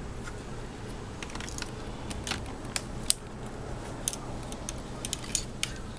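Irregular light clicks and taps of laptop parts being handled during reassembly, more frequent after the first couple of seconds, over a steady low hum.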